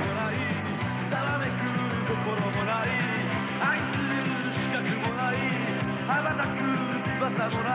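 The film's rock-style opening theme song playing, with steady loudness and no break.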